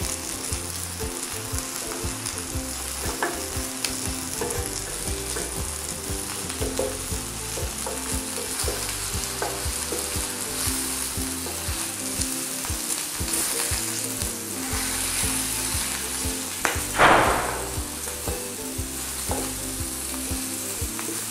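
Halved zucchini, tomato and onion sizzling steadily in a hot oiled pan, with light clicks of metal tongs as the pieces are turned. About four-fifths of the way through, a short, louder hiss.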